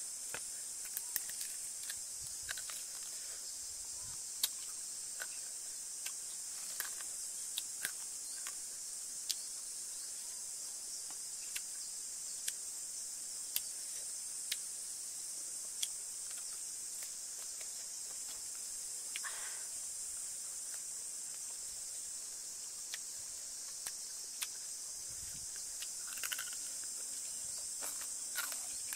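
Steady high-pitched insect chorus droning without a break, with scattered short sharp clicks over it.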